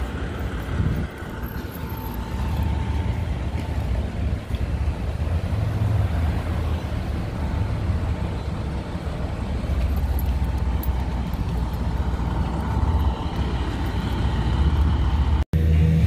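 Steady low rumble of idling vehicle engines in the street, with a faint steady hum above it. The sound drops out completely for a moment just before the end.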